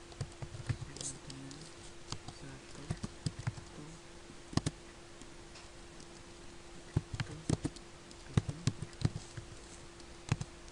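Computer keyboard being typed on: sharp key clicks in short irregular bursts with pauses between them, over a steady low hum.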